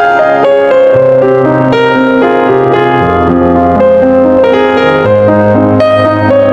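Background piano music: a quick run of notes over low bass notes that change every second or two.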